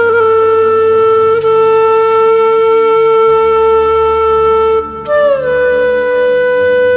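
Slow music on a wind instrument: one long, steady note held for about five seconds, then a step up to a higher held note, over a low drone.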